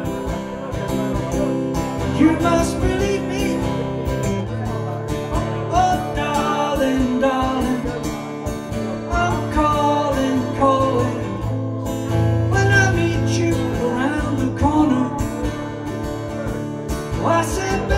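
Acoustic guitar played in steady chords, the chords changing every few seconds, with a melody line over them.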